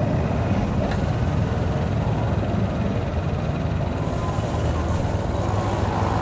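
Steady vehicle engine sound from riding slowly through busy street traffic, with motorcycles and cars running close by. A hiss grows stronger about four seconds in.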